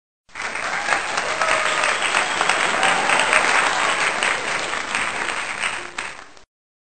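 A crowd applauding, with a few faint voices among the claps. It starts abruptly and cuts off after about six seconds, like a clip of applause edited into the soundtrack.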